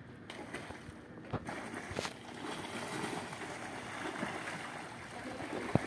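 Steady water noise, sloshing and splashing at the surface, which grows louder about halfway through. A few sharp knocks sound over it, the sharpest near the end.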